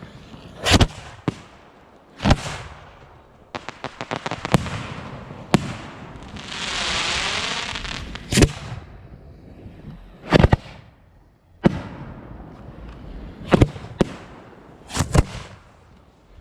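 Fireworks going off: a string of sharp bangs at uneven intervals, a quick run of crackling pops about four seconds in, and a hiss that swells and fades around the middle.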